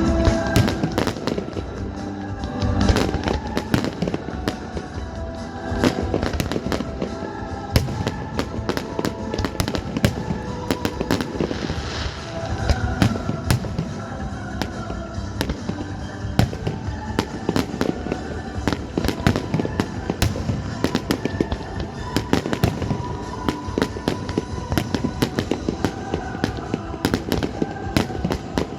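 Fireworks display: many shells bursting and crackling in rapid, irregular succession, over music playing along with the show.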